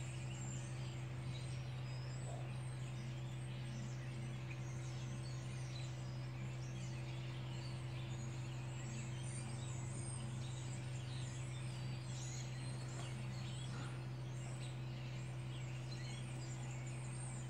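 A steady low hum, with faint bird chirps in the background.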